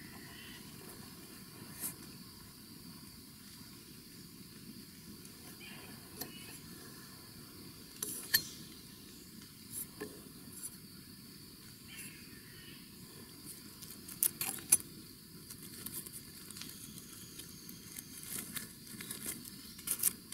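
A steady high insect drone, with scattered sharp clicks and light rattles through it; the loudest are a quick cluster of clicks about fourteen seconds in.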